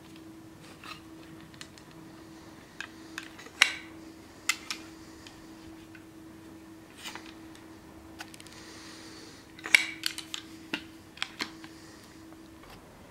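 A steel-fitted knife and its wooden scabbard being handled on a leather-covered bench: sharp metal clicks and knocks, the loudest about three and a half seconds and ten seconds in, with a short sliding hiss just before the second. A faint steady hum runs underneath and stops near the end.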